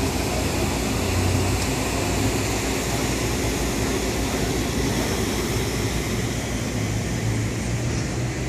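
Parked fire trucks' engines idling: a steady low rumble with an even hiss over it.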